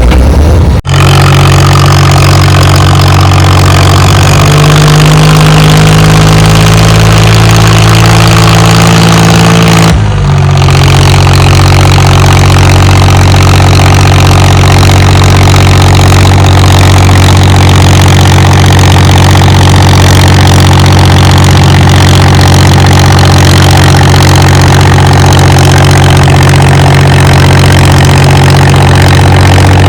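HMT tractor's diesel engine running loud at a steady speed. There is a brief break about a second in and another about ten seconds in.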